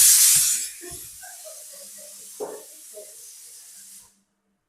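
Pressure cooker on an induction hob venting steam with a loud hiss that drops to a softer hiss after under a second and stops about four seconds in.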